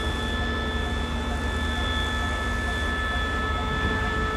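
Diesel locomotive No. 5112 idling at a standstill: a steady low engine rumble with a constant high whine over it.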